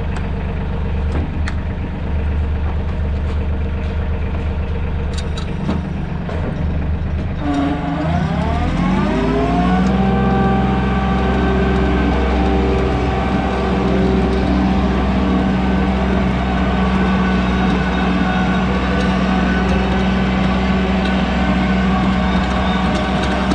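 Mahindra 1626 compact tractor's three-cylinder diesel engine idling with a few light knocks, then revving up about a third of the way in and running at a steady higher speed as the tractor drives off.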